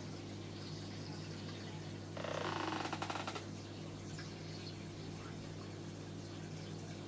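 Home aquarium's aeration and filter running: a steady low hum with water bubbling. About two seconds in, a louder gurgling burst lasts about a second.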